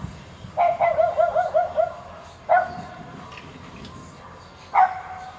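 A dog whining and barking: one long, wavering whine starting about half a second in, then short yips about two seconds apart. The tail of a thunder rumble dies away as it begins.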